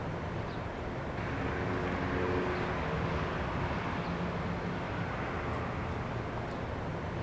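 Steady outdoor ambience: a low, continuous rumble of distant traffic with a faint hum.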